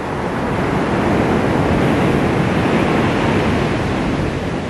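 Ocean surf breaking on a sandy beach, the wash of a wave swelling and then easing off.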